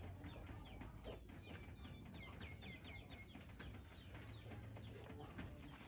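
Faint bird calls, with a quick run of short repeated chirps in the middle, over a low steady hum.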